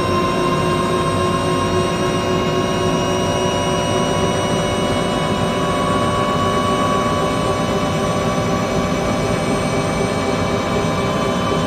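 Helicopter running steadily: a whine of several tones over a dense noise, the whine slowly rising in pitch.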